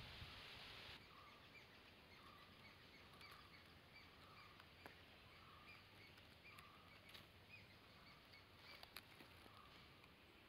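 Near silence: quiet outdoor ambience with faint, short bird chirps repeating every second or so. A steady hiss cuts off about a second in.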